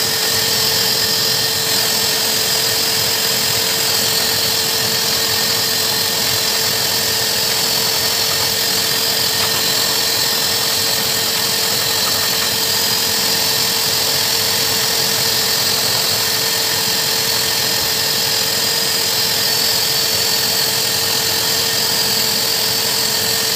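A hose-type dog blow dryer running steadily, its motor giving a constant whine under the rush of air blasting through the nozzle into a Saint Bernard's wet coat.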